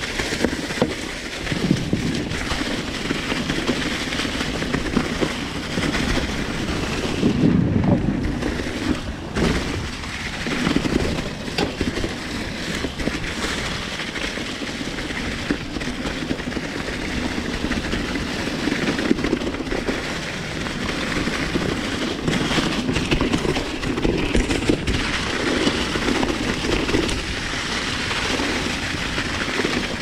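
Mountain bike rolling over dry fallen leaves and dirt singletrack: a steady crunch and crackle of tyres through the leaves, with constant small rattles from the bike and low wind rumble on the microphone.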